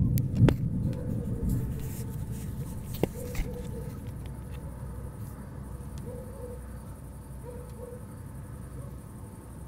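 Thunder rumbling, loudest at the very start and rolling away over the first two seconds, leaving a steady low rumble of background noise with a couple of faint ticks.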